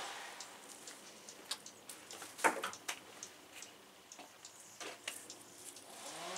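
Scattered light clicks and ticks, with one sharper snap about two and a half seconds in. Near the end the Homelite electric chainsaw's motor starts up, its whine rising in pitch.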